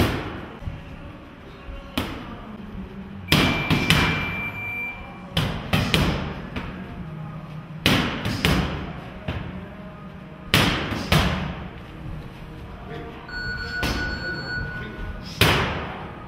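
Boxing punches landing on punch mitts held by a trainer: sharp smacks, singly and in quick combinations of two or three, every couple of seconds, each with a short echo off the gym walls.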